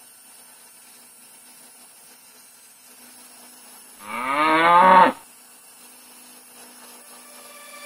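A cow mooing once, a single call about a second long starting about four seconds in, rising in pitch and dropping at the end. A faint steady hum runs underneath.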